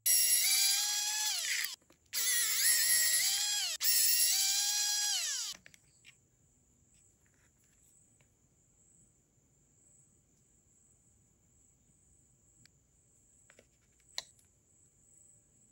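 Pen-style cordless electric screwdriver whining in three short runs as it drives screws out of a hair clipper's housing; each run rises and then slides down in pitch. A few faint clicks of small parts being handled follow near the end.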